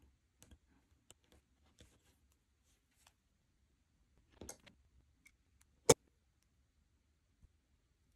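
Faint scattered clicks and taps of small hobby tools and a plastic figure helmet handled on a cutting mat, with a short cluster of clicks about four and a half seconds in and one sharp, loud click about six seconds in.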